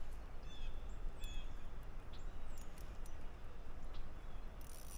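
Small birds chirping in short calls, some with quick downward slurs, scattered over a steady low rumble. A brief hiss comes near the end.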